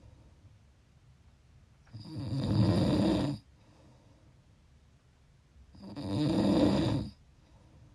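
A person snoring: two long snores about four seconds apart, each lasting over a second, with quiet between them.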